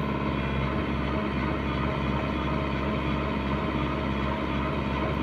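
Diesel engine of a heavy machine (backhoe, tractor or excavator) running steadily at an even speed.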